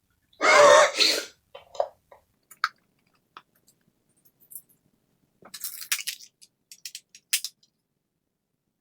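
Fast-forwarded, sped-up sound of a laptop being unscrewed with a small screwdriver. A short, high chattering burst comes about half a second in, then scattered sharp clicks and small rattles of the driver and screws on the plastic case, bunched more closely a little past the middle.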